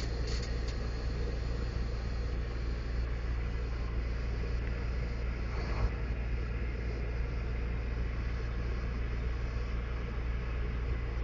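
Volvo semi tractor's diesel engine idling steadily, a low even rumble heard from inside the cab, with one small knock about halfway through.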